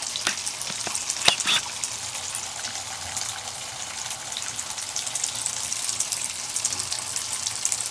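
Thin stream of water running from a bathtub spout and splashing into the tub, a steady hiss. A few sharp clicks or splashes come about a second in.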